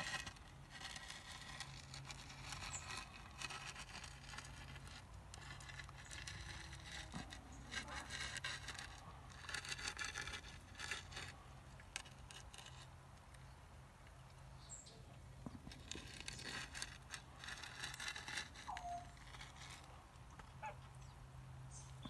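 Faint outdoor background: a steady low hum and rustling noise, with a few short bird calls, one about nineteen seconds in.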